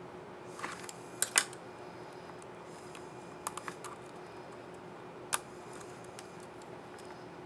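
Sharp plastic clicks from an HP 15-bs113dx laptop keyboard key and its scissor mechanism: a pair about a second in, a quick run of three near the middle, and one more a little later.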